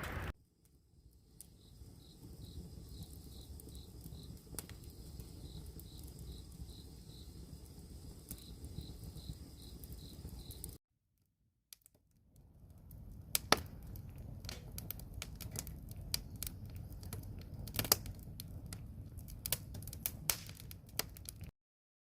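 Wood campfire crackling and popping over a low steady rumble, with sharp pops loudest in the second half. For the first ten seconds an insect chirps steadily about twice a second at a high pitch. The sound cuts out briefly about eleven seconds in.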